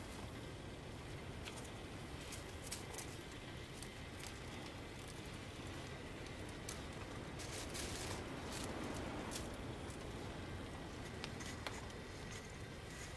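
Snow melting and settling in a metal camping kettle: faint scattered ticks and crackles over a steady low hiss. Near the end comes the soft crunch of a handful of fresh snow being pressed into the kettle.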